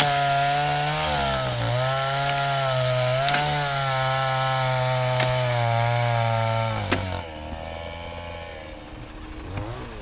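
Two-stroke chainsaw held at full throttle cutting into wood, its pitch sagging slightly now and then as the chain loads up, with a few sharp clicks. About seven seconds in the throttle comes off and the sound drops to a quieter, lower engine note.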